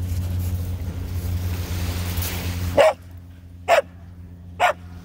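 A dog barking three short, sharp barks about a second apart, starting about three seconds in, the kind of barking a dog does at its owner to have the ball thrown. A steady low rumble fills the first part and stops abruptly as the barking begins.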